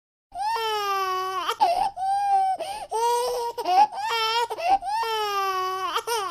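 Baby crying: a run of long, high-pitched wails with short gasping breaths between them, starting suddenly after silence.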